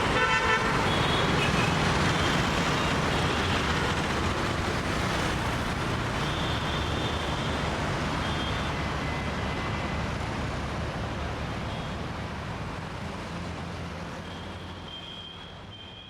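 City road traffic: a steady wash of vehicle engines and tyres with scattered short high-pitched tones, gradually fading out over the last several seconds.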